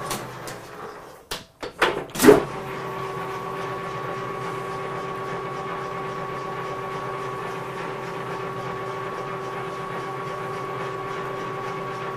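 A few clunks as the lathe's controls are set, then a large engine lathe starts about two seconds in and runs steadily, its spindle drive giving a constant whine over a steady hum.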